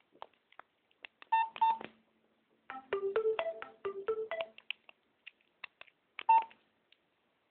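Key clicks and short electronic beeps from a Nokia X2-02 mobile phone, with a quick snatch of a stepped electronic ringtone melody about three seconds in that cuts off after about a second and a half.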